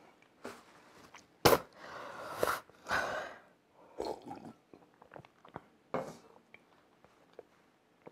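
A man loudly slurping milk from a mug for about two seconds, starting with a sharp click at the lips. A few shorter mouth and handling noises follow.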